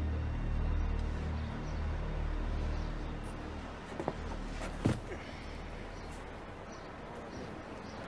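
A low, ominous music drone fading out over the first few seconds, then quiet outdoor background sound broken by a couple of short clicks.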